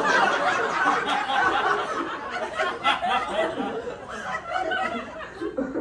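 Live audience laughing, many voices at once, easing off a little toward the end.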